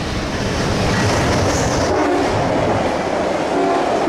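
VIA Rail passenger train rolling past, a loud steady rumble and rush with its wheels clattering over the rails.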